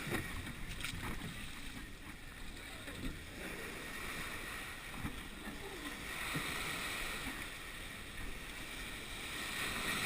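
Water washing against a surf boat's hull, a steady hiss that swells and eases twice, with a few light knocks.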